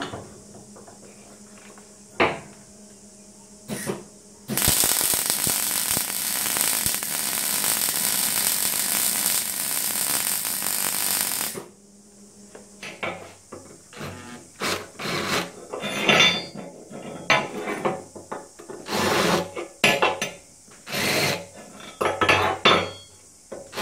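MIG welder at work on steel: a few short bursts, then one continuous weld run of about seven seconds, a steady crackling hiss that stops abruptly. It is followed by a stretch of irregular scraping and knocking on the metal bench.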